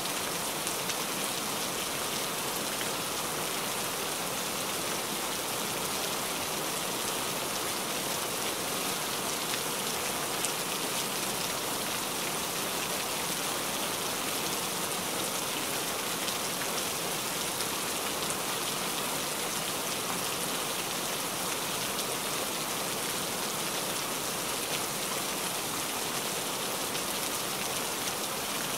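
Heavy rain falling steadily on a wet surface: an even hiss flecked with scattered small drop splashes.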